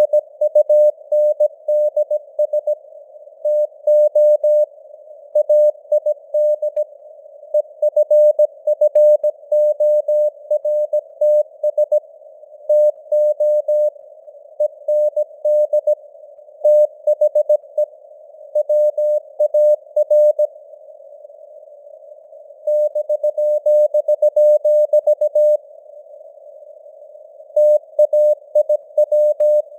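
Morse code (CW) sent at 17 words per minute: a single mid-pitched tone keyed on and off in dots and dashes over a narrow band of simulated radio hiss, with a few longer pauses between words.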